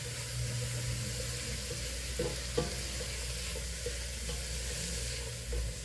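Diced onions, green peppers and celery sizzling in hot avocado oil in a pot over a high flame while being stirred, with two short light knocks a little past two seconds in and a steady low hum underneath.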